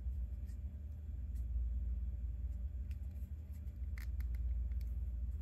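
Faint clicks and taps of small resin-printed plastic parts being handled and fitted together by hand, a few scattered and a short cluster about four seconds in, over a steady low hum.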